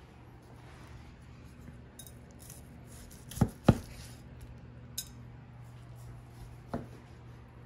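Knife slicing a cooked ribeye steak, knocking on the cutting board: two sharp knocks about halfway through, a third of a second apart, then a couple of lighter taps, over a steady low hum.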